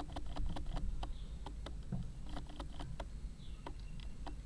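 Camera autofocus motor clicking rapidly and irregularly, several clicks a second, as it hunts for focus, over a low background rumble.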